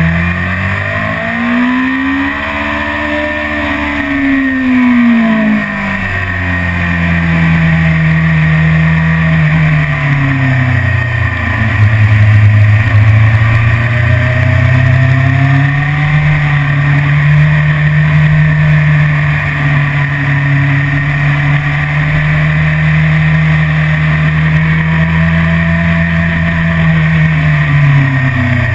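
BMW S1000RR's inline-four engine running at track speed: the revs climb and fall over the first few seconds, then hold fairly steady for most of the rest, dropping near the end.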